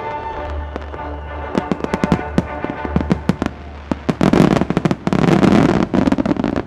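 Daytime starmine fireworks: a quickening series of sharp bangs from bursting shells builds into a dense, crackling barrage about four seconds in, then cuts off suddenly near the end. Music plays under the opening bangs.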